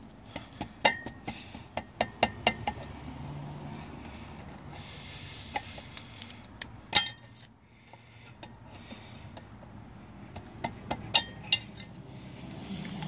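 Pliers tapping a metal locking-tab washer tab into place on an outboard propeller nut: a series of sharp metallic clinks in irregular clusters. A quick run of them comes about a second in, the loudest single clink about seven seconds in, and a few more near the end.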